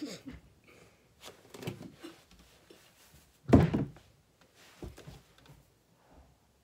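A single loud thump about three and a half seconds in, with a few fainter knocks and rustles around it.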